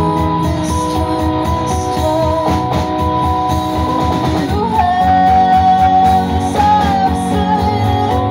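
Live indie rock band playing: electric guitars, bass and drum kit over a steady beat, with a long held, bending melody note through the middle.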